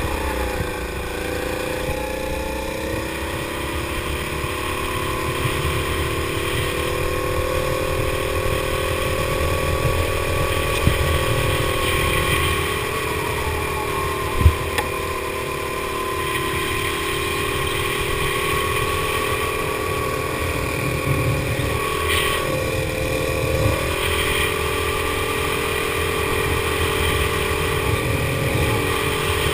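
Go-kart engine running hard under load, heard from aboard the kart, its pitch dipping just after the start and again around the middle as it slows, then climbing back. A rumble of wind on the microphone runs underneath, and a single sharp knock comes about halfway through.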